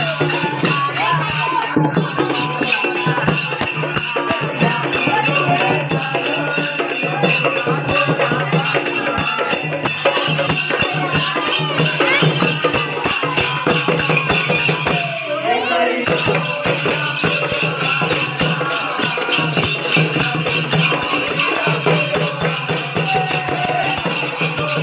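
Hand-beaten two-headed barrel drums (dholki-type) playing a fast, steady folk rhythm, with a dense jingling percussion layered over the beat.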